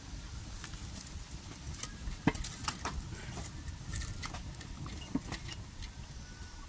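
Wood fire burning under a pot, with scattered irregular crackles and pops over a low steady rumble.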